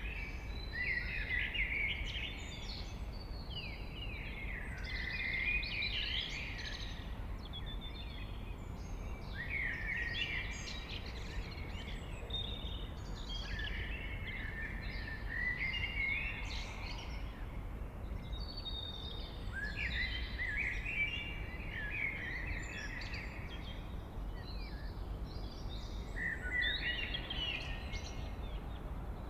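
A blackbird singing its early-morning song: a series of warbled phrases, each a couple of seconds long, with short pauses between them. A steady low background rumble runs underneath.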